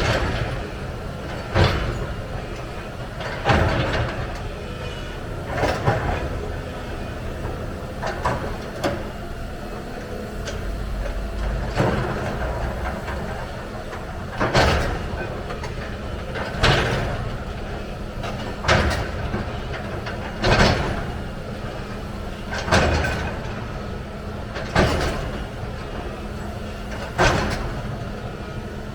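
Heavy excavator running with a steady low engine drone, under a sharp knock about every two seconds, each ringing briefly as it fades.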